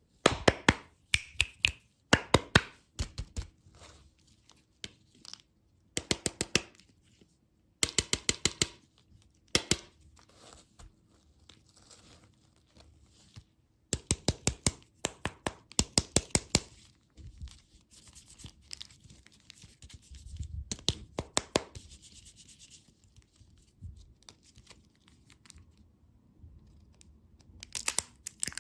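Close-miked ASMR crackling from sweets being handled and eaten: bursts of rapid sharp crackles, as of crinkling wrappers and crunching bites, come several times with pauses between.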